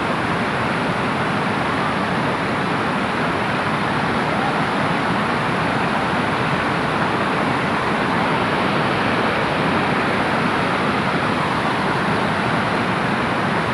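Water pouring over a concrete dam spillway and churning into the river below: a steady, even rush.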